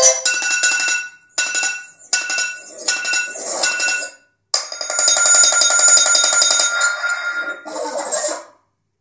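Electronic tones and music played through an iPad Air 2's speaker, breaking into chunks that start and cut off abruptly, with a short beep repeating about twice a second in the first half and two drops to silence: the tablet's intermittent audio fault, which tends to appear after a reboot or battery-drain shutdown.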